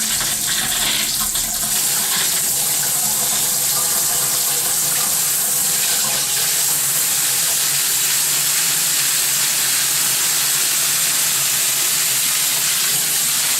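Bathroom sink faucet running steadily with its aerator removed, water pouring into the sink to flush dirt out of the newly plumbed supply lines.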